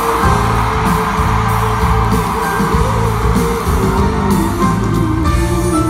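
Live pop song with singing and band accompaniment, heard from the arena audience, with the crowd screaming and cheering over it, most thickly in the first few seconds.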